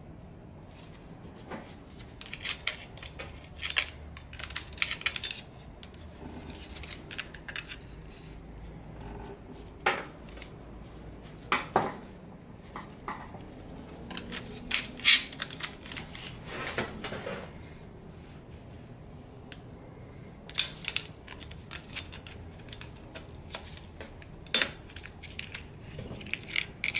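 Light metallic clinks, taps and scrapes, irregular and in clusters, as parts of a Coleman 125 ATV engine are handled: the cylinder, its timing chain and a screwdriver knocking against the metal.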